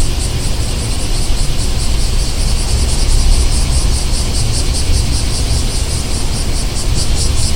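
Street ambience: a steady low rumble of traffic, with insects chirring high above in a rapid, even pulse of about four to five beats a second.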